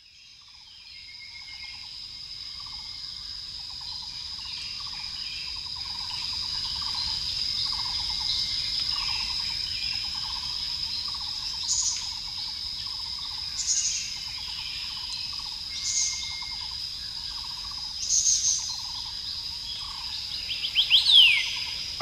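Field recording of forest insects and birds fading in from silence: a steady high insect drone with a lower pulsed call repeating about once a second, joined from about halfway by short bird chirps every couple of seconds and a quick run of sweeping bird notes near the end.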